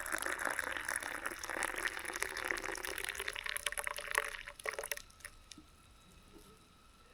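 Water being poured, a steady splashing pour that stops about five seconds in.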